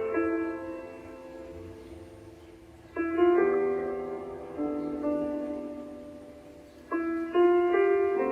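Slow, soft instrumental sleep music: new chords sound about three and seven seconds in, each ringing on and fading away.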